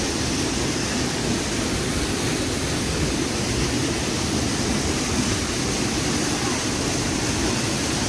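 Waterfall: the steady, even rush of falling water.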